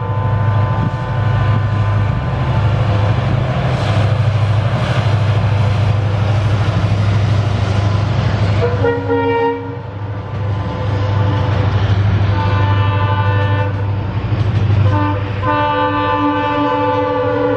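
Diesel-hauled express train running past at speed: a steady deep engine rumble under the rush and clatter of the coaches. Multi-tone locomotive air horn sounds, a short blast falling in pitch about nine seconds in and a longer one from about twelve seconds to the end.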